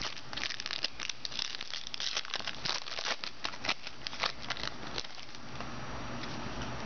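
Crinkling and rustling of a trading-card pack wrapper being torn open and handled, in quick irregular crackles for about five seconds, then dying down.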